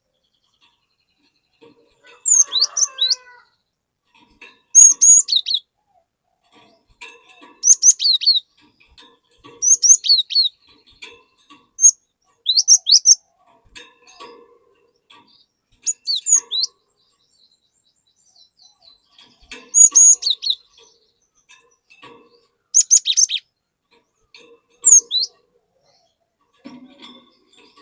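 Cinereous tit (glatik batu) singing: short bursts of high, quick chirping notes, repeated about every two to three seconds.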